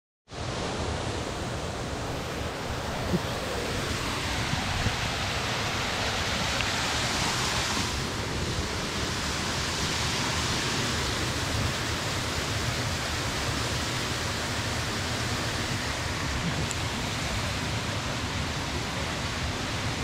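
Steady rushing of falling water, an even noise that holds throughout.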